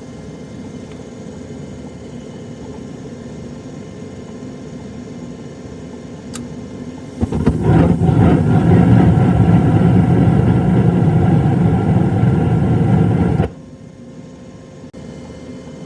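Gas furnace running with a steady hum. About seven seconds in, its burners light with a loud rushing hum, then cut off abruptly some six seconds later: burners shutting down shortly after ignition, typical of a dirty flame sensor that fails to prove the flame.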